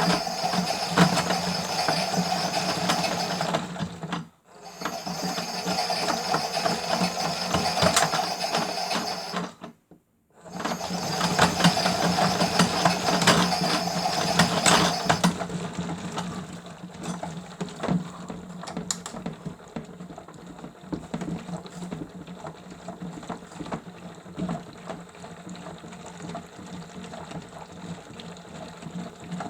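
Miele W1 toy washing machine running its wash, its small motor whirring loudly in three stretches broken by two brief stops, then carrying on more quietly with a steady hum and light clicking for the second half.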